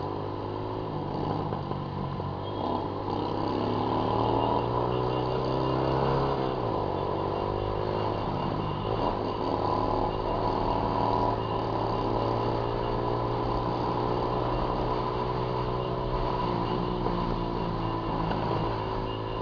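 Honda CG Titan 150's single-cylinder four-stroke engine running under way, its exhaust note rising and falling with the throttle, dropping in pitch about six seconds in and again near the end.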